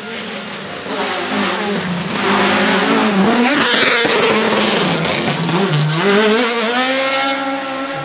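Ford Escort Mk2 rally car's engine revving hard. The pitch falls and rises with the gear changes, dipping about three seconds in and again near six seconds, then climbing steadily as the car accelerates away.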